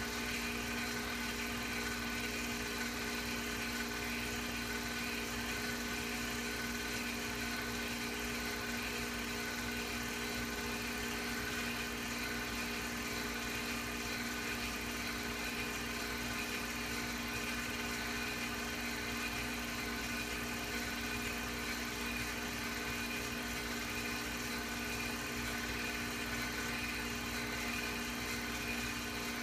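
Film projector running: a steady motor-and-fan hum made of several constant tones over a low hiss, without change.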